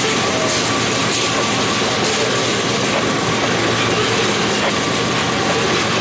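Freight train of tank cars rolling past: a steady noise of steel wheels running on the rails.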